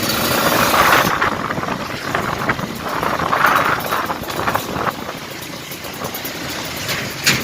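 Kawasaki Ninja RR 150 cc single-cylinder two-stroke being ridden on the road, its engine running under load mixed with wind rush on the microphone, with no bogging or cutting out. A short sharp knock near the end.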